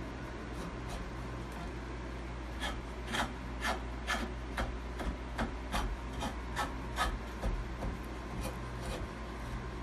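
Carving knife paring wood from the heel of a flamenco guitar neck: a run of short scraping cuts, about two a second, starting a few seconds in, over a steady low hum.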